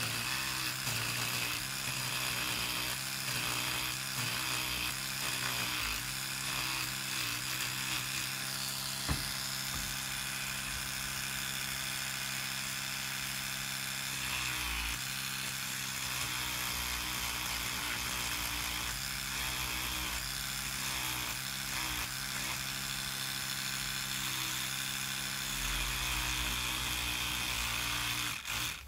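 Round-head electric toothbrush running with a steady motor hum as it scrubs loose rust off a Luger P08's steel grip frame, its pitch dipping briefly now and then. One sharp click about nine seconds in.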